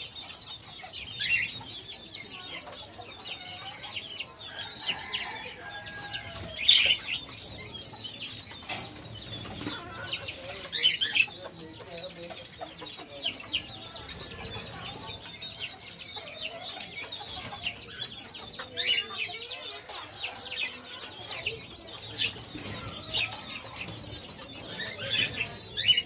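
Cockatiels chirping and calling over and over, with a louder shrill call every few seconds, and now and then a flutter of wings in the cage.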